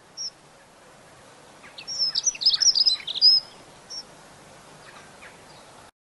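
Dunnock singing: one fast, high, warbling phrase of about two seconds, with a single thin high note shortly before it and another about half a second after.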